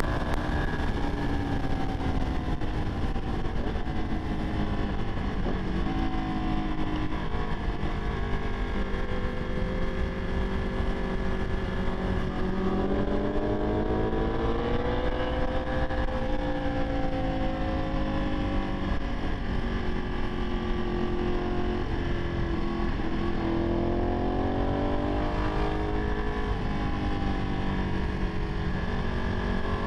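Onboard sound of a Ducati 959 Panigale's Superquadro L-twin under way at road speed, over a steady rush of wind and road noise. The engine note climbs and eases off twice as the rider rolls on and off the throttle.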